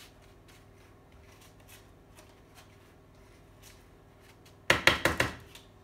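A spoon spreading a granola mix of oats and nuts across a parchment-lined baking tray: faint, scattered scrapes and rustles. About three-quarters of the way in comes a brief, loud clatter of several knocks against the tray.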